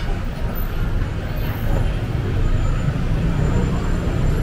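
City street traffic: a steady low rumble of vehicle engines and passing traffic.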